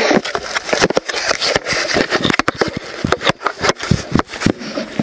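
Close handling noise from a camera being repositioned on the ground: a dense run of scrapes, knocks and grass and cloth rustling against the microphone.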